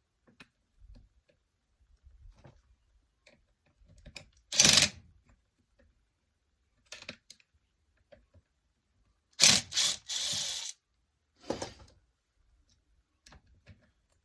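Tools and saw parts handled on a workbench: scattered small clicks and taps, with a few short scraping or rustling noises about four and a half seconds in, again from about nine and a half to nearly eleven seconds in, and once more briefly after that.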